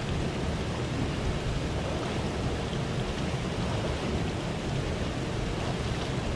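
Steady rushing noise of a rocky river running over stones, with a low rumble that stays even throughout.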